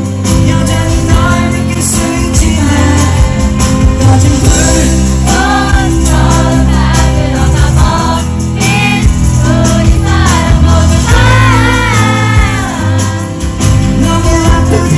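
Loud live concert music: a singer's voice over a heavy bass beat.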